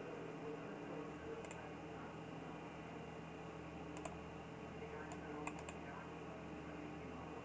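A handful of faint computer mouse clicks, with a quick cluster of three or four about five seconds in, over a steady electrical hum and hiss.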